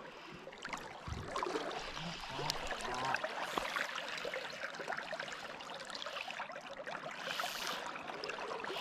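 River water running and rippling steadily, with a few faint ticks.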